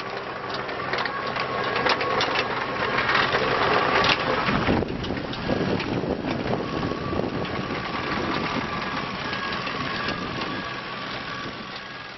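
2012 Wacker Neuson 28Z3 mini excavator travelling on rubber tracks over gravel: its diesel engine running steadily with a whine, and the tracks crunching and clicking over the stones. It grows louder as the machine passes, about two to five seconds in, then fades as it moves away.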